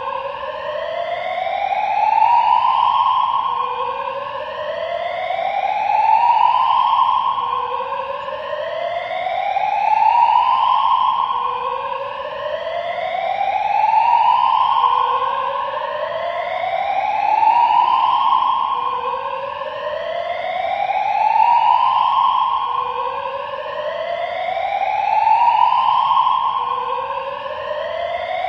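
Siren-like tone that rises steadily in pitch for about four seconds, drops back abruptly and starts rising again, repeating evenly.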